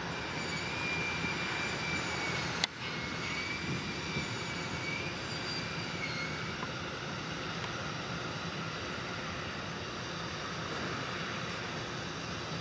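Steady engine or machinery drone with a faint, slightly wavering high whine over the first half, and a single sharp click a little under three seconds in.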